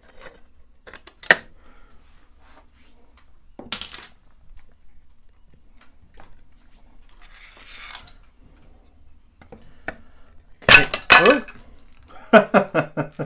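Side cover of a Bosch mid-drive e-bike motor being worked loose and pulled off. It gives a few scattered clicks and a faint scrape, then a burst of loud clattering knocks about ten seconds in as the cover comes away from the housing.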